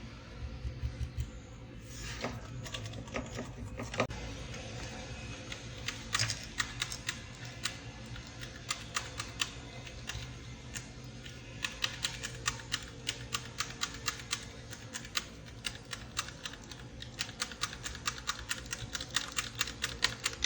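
Keys being pressed on a keyboard: short, sharp clicks, a few scattered at first, then quick irregular runs of typing from about six seconds in, over a faint steady low hum.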